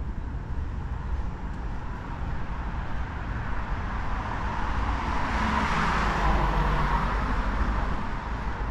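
Steady street traffic, with one vehicle driving past on the road, its noise swelling and fading, loudest about six seconds in.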